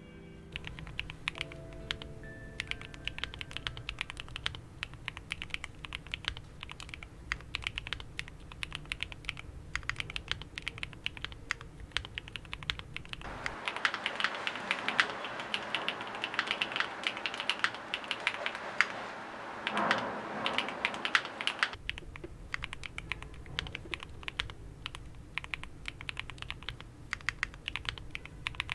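Tactile mechanical keyboard switches being typed on quickly in a sound test, a dense run of keystroke clacks. About 13 seconds in the sound changes to a brighter, sharper typing, a different switch or board, and about 22 seconds in it changes back to the first, deeper typing.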